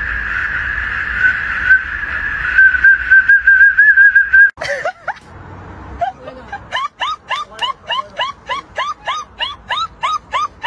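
A German shepherd blows a metal whistle held in its mouth: a steady shrill tone for about four and a half seconds that wavers near the end. Then a greyhound gives a run of short rising-and-falling whines, about two a second.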